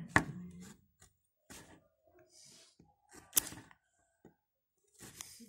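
Scissors cutting open the seal of a Redmi 6A phone's cardboard box. There are sharp snips just after the start, about three and a half seconds in and at the end, with faint scraping of the blade against the box between them.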